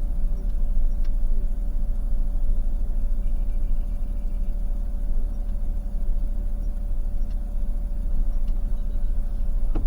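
Car driving slowly, a steady low engine and road rumble with a faint steady hum over it.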